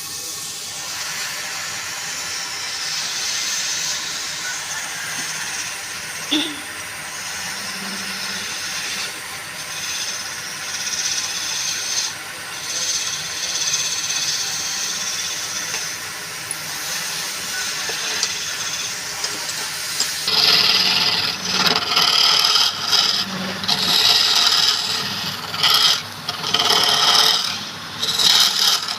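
Woodturning on a lathe: a tool scraping against the spinning wood with a steady hiss, then from about twenty seconds in in short stop-start passes as the tool is pressed on and lifted off.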